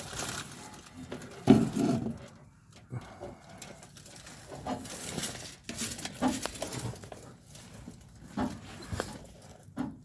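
Hands working a steel parking brake cable and its bracket into place, making irregular scrapes, rustles and small knocks. The loudest is a sharp knock about a second and a half in.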